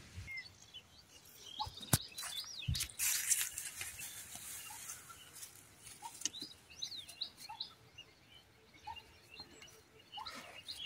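Small birds chirping and twittering, with a few sharp clicks and a brief rustle in the first few seconds.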